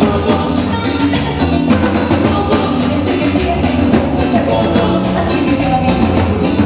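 Live Latin tropical dance band playing with drums and percussion keeping a steady beat, and voices singing over it.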